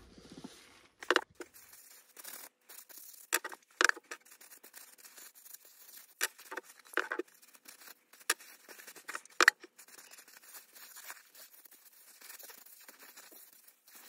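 Paper towel rustling and rubbing on a small wooden piece as Danish oil is wiped on. Several sharp, irregular clicks and taps of handling come through it.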